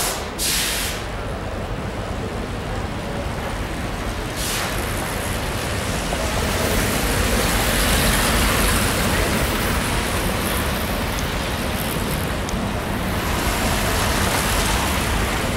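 Track bicycles circling a wooden velodrome track: a steady whirr of tyres on the boards mixed with hall noise, swelling as the pack rides close about six to nine seconds in. Short hisses come near the start and about four seconds in.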